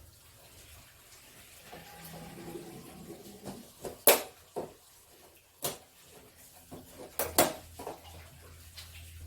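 A few sharp clacks and knocks of hard objects being handled, a second or more apart, the loudest about four seconds in and two close together near the end. A low steady hum starts about a second before the end.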